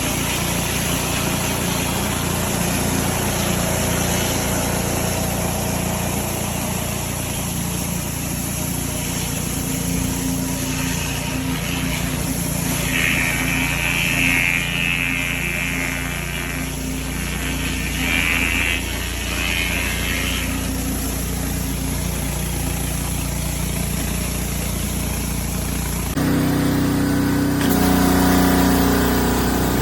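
Pressure washer running steadily while the surface cleaner is in use. Around the middle, a few seconds of higher hissing spray come and go. Near the end, the sound changes abruptly.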